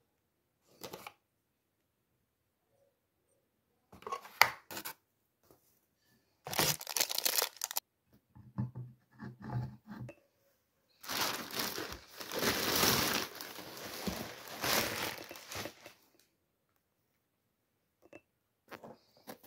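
Packing material being torn and crumpled in several short bursts, with a longer stretch of rustling about halfway through. A sharp knock comes about four seconds in.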